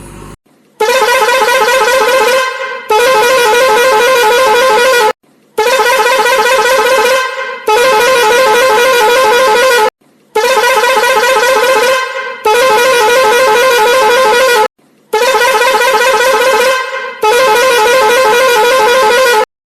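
Vehicle horn sounding in long, loud blasts of about two seconds each. The same pair of blasts repeats four times, each cut off abruptly, like a looped horn sound effect.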